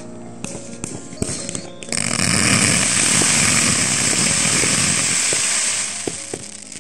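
A firework cake firing a fan of glittering, crackling comets: a loud, dense crackling hiss that starts about two seconds in and dies away near the end. Background music plays underneath.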